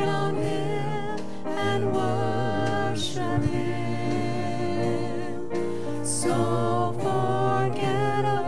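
Gospel worship song: a man and a woman singing with vibrato over held keyboard chords.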